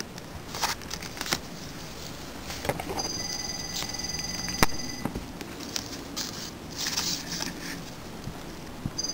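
Handling noise from a cardstock craft card and tools on a cutting mat: soft paper rustles and a few light taps, the sharpest about four and a half seconds in.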